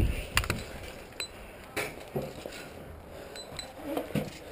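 Footsteps and the clink and rattle of carried gear, with a few sharp clicks and knocks, several together about half a second in and one more near two seconds.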